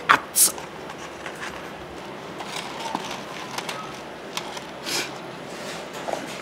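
A person eating from a takeout container: two short, loud noisy bursts right at the start, then scattered small clicks and rustles.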